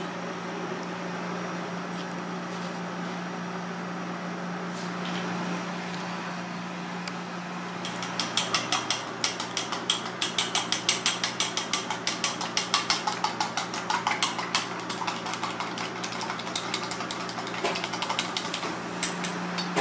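Wooden chopsticks beating eggs in a small stainless steel bowl: a fast run of clicking taps against the metal, about four a second, starting about eight seconds in and thinning out near the end, over a steady low hum.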